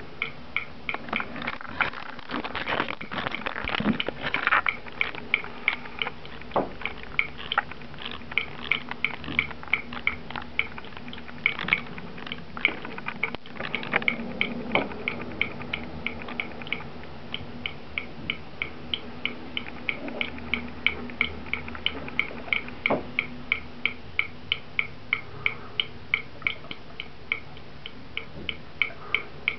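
Cat lapping water from a bathroom tap's spout: an even run of small wet laps, about two to three a second.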